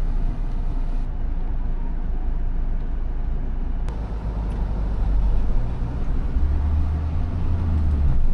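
Road noise inside a moving car: a steady low rumble with tyre and wind hiss, getting a little louder about five seconds in, and a brief click near the middle.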